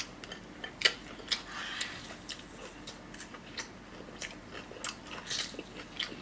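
Close-miked chewing of food, with irregular wet mouth clicks, a louder one about a second in.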